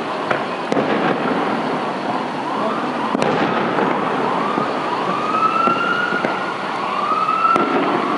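Fireworks display: dense crackling with a few sharp bangs. Through the middle and latter part comes a series of rising whistling tones, each about a second long.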